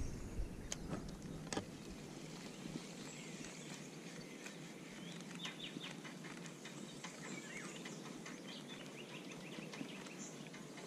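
Quiet winding of a spinning reel on a lure retrieve, with a couple of sharp clicks in the first two seconds. Small birds chirp faintly in the background.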